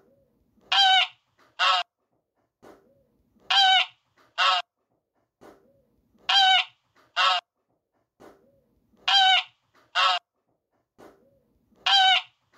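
Canada goose honking in pairs, a longer honk followed by a shorter one. The pairs repeat at even spacing, about every three seconds, five times.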